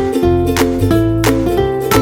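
Background music: a bright ukulele-led tune with plucked strings, a bass line and a steady beat.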